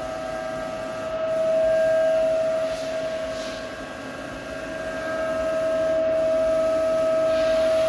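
Mori Seiki SL-403C CNC turning center running: a steady high whine from its drives, swelling louder about a second in, dipping near the middle and rising again in the second half.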